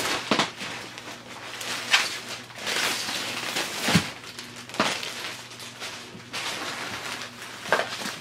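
Thin clear plastic packaging bag crinkling and rustling as it is pulled off a new tote, with several sharp crackles.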